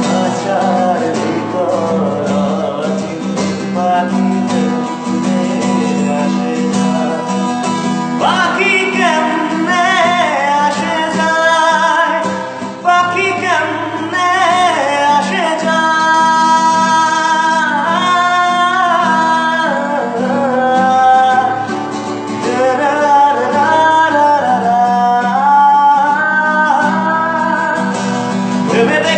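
Folk rock music with strummed acoustic guitar over a steady low drone; about eight seconds in a gliding, wavering melody line comes in over it.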